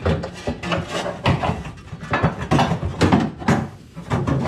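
A string of irregular clicks, knocks and rattles as car interior parts are handled and worked into place.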